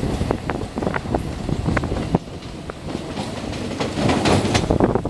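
Moving DEMU train's wheels clattering over the track: a steady rumble with many sharp, irregular clicks, heard from the coach doorway, with a denser run of clicks about four seconds in.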